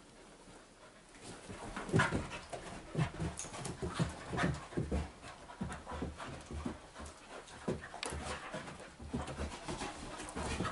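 Two dogs play-fighting, a Labradoodle and a small white dog: panting and scuffling with irregular short thumps as they wrestle, starting about two seconds in.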